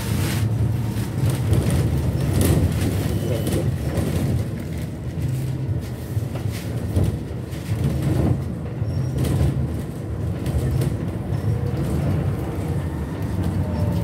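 Trolleybus interior noise while riding: a steady low rumble of the body and tyres on the road, with irregular knocks and rattles.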